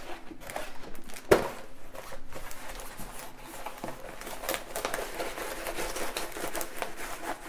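Rolled diamond painting canvas being unrolled and pressed flat by hand: crinkling and rustling of the stiff canvas, with one sharp tap about a second in.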